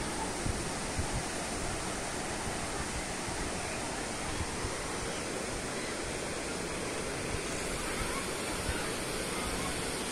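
Steady rush of sea surf and wind, with a few brief low gusts about a second in and now and then after.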